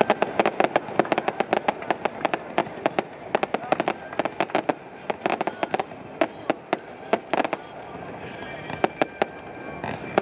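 Fireworks going off: a rapid, dense run of sharp pops and crackles that thins out about eight seconds in, then picks up again near the end.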